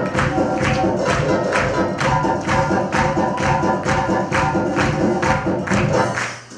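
Darbuka drum-solo music: a steady pattern of sharp hand-drum strokes with quick rolls, over held sustained tones, breaking off just before the end.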